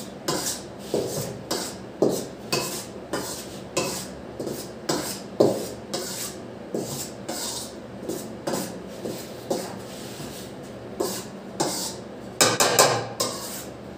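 Metal spoon scraping and tapping round an aluminium pan of dry flour being stirred and toasted on the stove, in steady strokes about once a second. A flurry of louder scrapes comes near the end.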